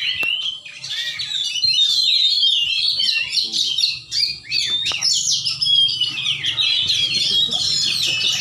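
Caged oriental magpie-robins (kacer) singing, a loud, dense, unbroken run of varied whistles and rapid chattering notes.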